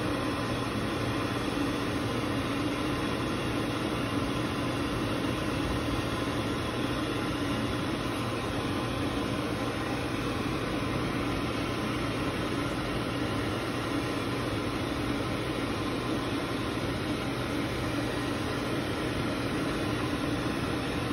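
Blow dryer running steadily while a puppy's coat is dried: an even rush of air with a low hum, unchanging throughout.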